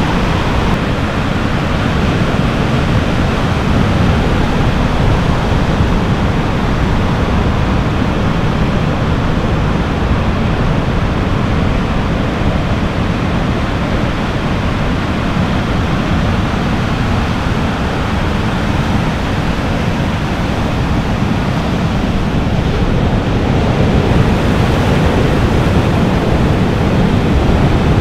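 Ocean surf breaking, a steady rushing noise, with wind.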